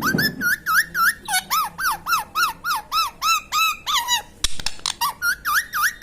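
Indian ringneck parrot giving a rapid run of short, shrill squawks, about four a second, with a brief break and a sharp click about four and a half seconds in before the squawks resume.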